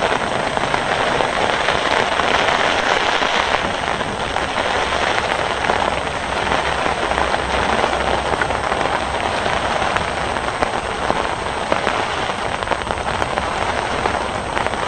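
Heavy rain pouring down, a steady, even hiss of falling drops with no let-up.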